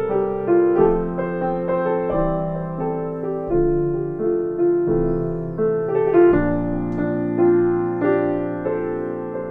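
Piano playing a slow passage of chords with a melody on top, a new note or chord struck every half second to a second and each left to ring and fade.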